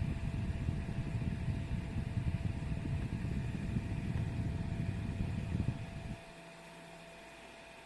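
Battery-powered mini USB clip fan running, its airflow buffeting the microphone as a loud low rumble that drops away abruptly about six seconds in, leaving a faint steady hiss.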